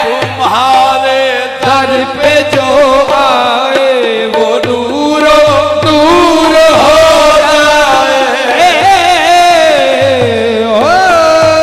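Qawwali music: harmonium melody over a tabla rhythm, with a voice gliding up and down over the top.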